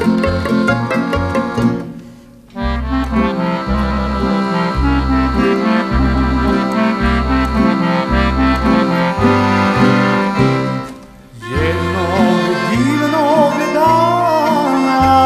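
Accordion-led instrumental introduction to a Bosnian sevdalinka, with the accordion playing over a pulsing bass line. The music pauses briefly twice, about two seconds in and about eleven seconds in, and after the second pause a wavering melody line comes in.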